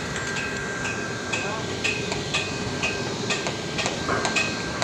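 Hydraulic jacking unit of a D160 tower crane's climbing frame running with a steady hum and a thin, steady whine, about to push the crane up another step. Short sharp metallic clicks and taps come every fraction of a second over it.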